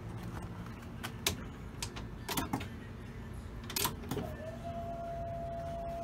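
A few clicks and knocks, then about four seconds in an electric fuel pump starts with a steady whine that rises briefly and holds. The pump is running normally: "sounding good".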